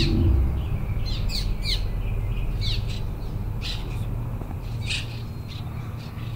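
Birds chirping: short, quick falling chirps every second or so, over a steady low rumble.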